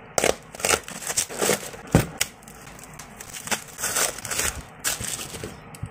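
Plastic parcel wrapping being torn open and crinkled by hand: irregular crackles, rustles and sharp clicks.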